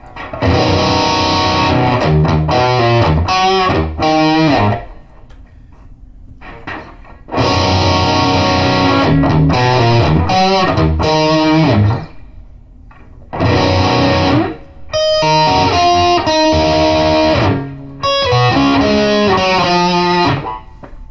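Electric guitar (an Epiphone 1959 Les Paul) played through a Boss Katana Mk II 50-watt amp with its booster on, playing overdriven lead lines in about five phrases with short pauses between. The amp's Global EQ is switched on and stepped through its flavors, so the tone shifts from one phrase to the next.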